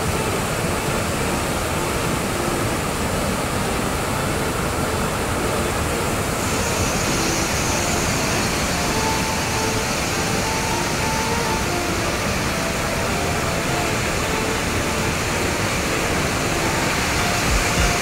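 Steady roar of a large waterfall in spate, muddy floodwater pouring over rock ledges. The hiss grows brighter about six seconds in.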